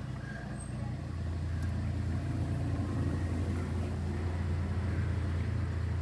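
Nissan Y11 AD wagon's engine idling steadily just after being started.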